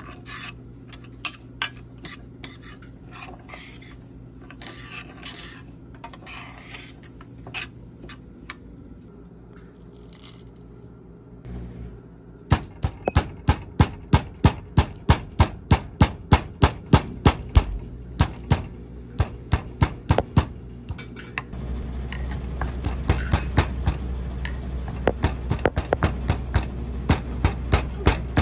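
A metal spoon scrapes and stirs dry semolina in a steel pot. About twelve seconds in, a steel pestle starts pounding green cardamom pods in a steel mortar, with sharp metal strikes about three a second. A low steady hum joins partway through the pounding.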